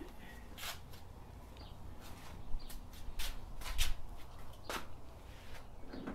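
Scattered light clicks and taps of hands working with parts during a motorcycle windshield install, over a low steady background hum.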